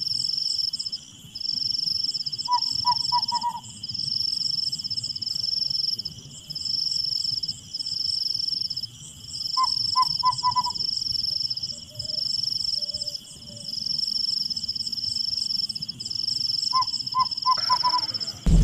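Night insects trilling in repeated high pulses about a second long, with a bird calling three times in quick runs of four short harsh notes.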